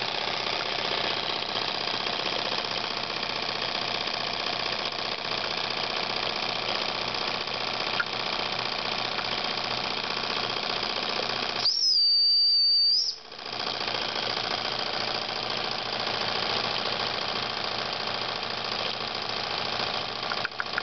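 Jensen 55 toy steam engine running steadily, with a constant mechanical running noise. About twelve seconds in, the boiler's steam whistle blows one loud, high, steady note for about a second and a half, and then the engine running is heard again.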